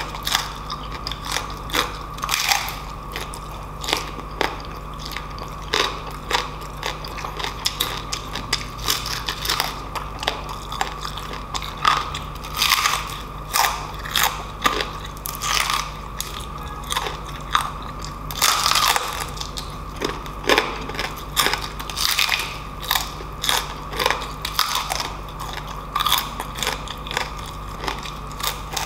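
Close-up crunching and chewing of deep-fried crispy pork knuckle with its crackling skin, in many irregular crisp bites with mouth sounds between them.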